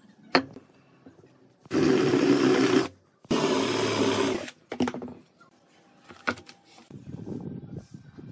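Cordless drill boring into a wooden block in two bursts of about a second each, its motor running under load. Near the end comes a soft crinkling as a plastic bottle is handled.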